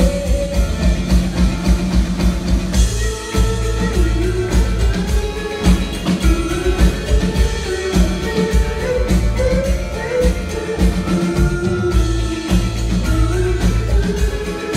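Live band playing with drum kit, upright bass and electric guitar, under a woman's lead vocal.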